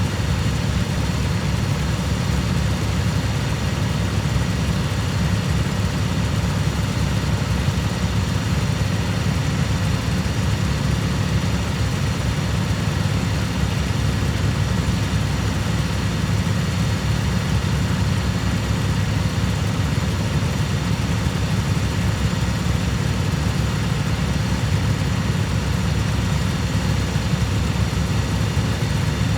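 Cub Cadet lawn tractor engine running steadily at an even speed, with no change in pitch.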